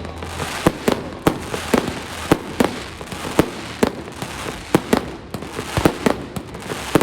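Fireworks display going off: a rapid, irregular string of sharp bangs, several a second, over a continuous crackling hiss.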